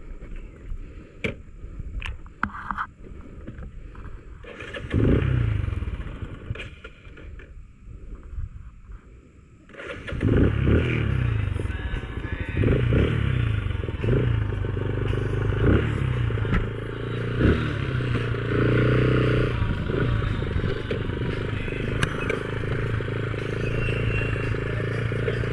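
Motorcycle engine: a short burst of engine sound about five seconds in fades away, then from about ten seconds the engine runs steadily as the bike pulls away on dirt, its pitch rising and dropping again and again as it revs and changes gear. A few sharp clicks come before it.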